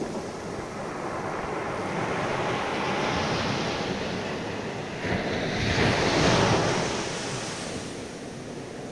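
Small Atlantic waves breaking close by and surf washing up the sand, a steady hiss that swells to its loudest about six seconds in as a wave washes in, then ebbs.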